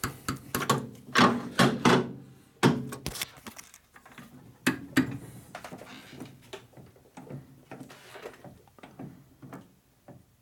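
Metal clunks and knocks from a lathe tailstock being slid back along the bed and clamped down, several sharp strikes in the first few seconds and another about five seconds in, then lighter taps.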